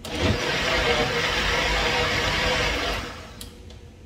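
Electric countertop blender running on grated coconut and water for about three seconds, then switched off.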